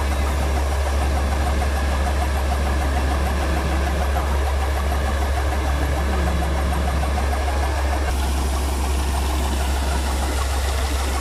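New Holland combine harvester running steadily with its unloading auger discharging grain, a loud continuous low engine drone under machinery rattle; the rattle drops away about eight seconds in.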